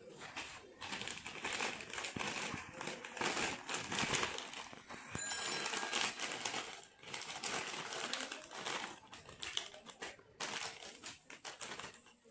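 Crinkling of a Lay's potato chip bag, the metallised plastic rustling and crackling in irregular bursts as a hand rummages inside to pull out chips.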